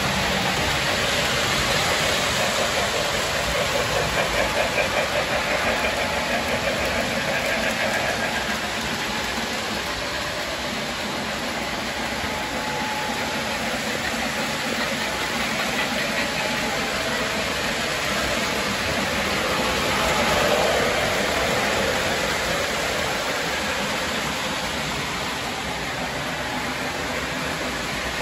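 Model electric trains running on a three-rail layout: a steady rumble of wheels on track and motors, with a fine rapid clatter about four to eight seconds in and a brief swell about twenty seconds in.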